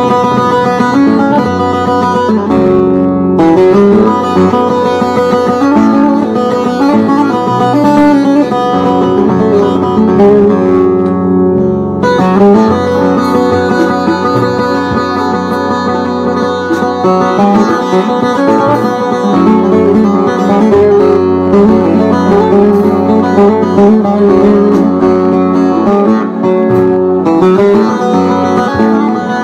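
Bağlama (Turkish long-necked saz) played solo: a fast plucked and strummed melodic passage, the instrumental interlude between verses of a Turkish folk song (türkü).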